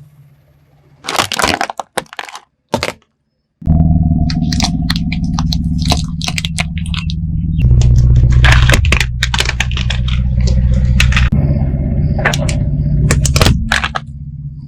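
Car tyres crushing objects, many sharp cracks and snaps over the low running of the car's engine. A loud burst of cracking comes about a second in, and the engine rumble sets in about four seconds in.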